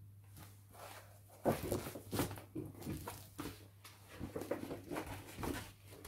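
Pages of a large picture book being turned and the book handled: irregular rustling and crinkling of stiff paper, getting louder about a second and a half in.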